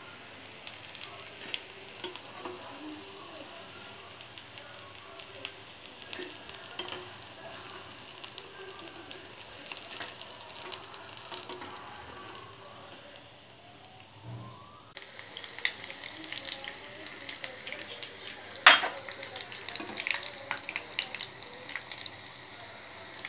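Chicken pakoda in a gram-flour batter deep-frying in hot oil, a steady sizzle full of small crackling pops. A single sharp knock about three-quarters of the way through, the loudest sound here.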